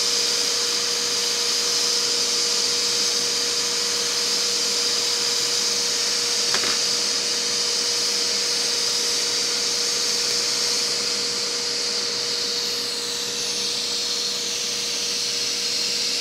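Hakko FR-810B hot air rework handpiece blowing steadily with its nozzle off, at 390 °C and airflow setting 6, while a chip is desoldered from a laptop mainboard: a steady fan hiss with a constant hum-like tone in it. A faint click about six and a half seconds in.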